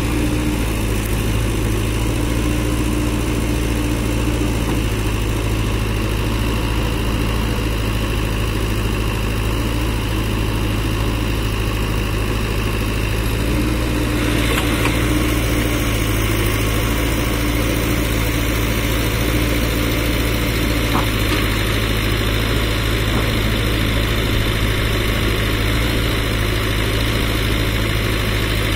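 JCB 3DX backhoe loader's diesel engine running steadily, with a higher tone that comes and goes over it. It gets slightly louder about halfway through.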